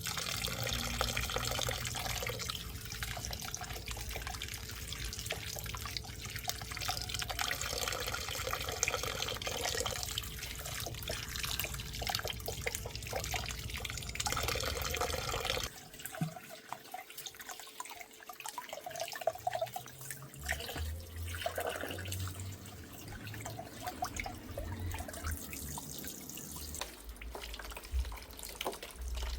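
Water running from a tap and splashing, which cuts off abruptly about halfway through. It is followed by scattered light knocks and a few low thumps.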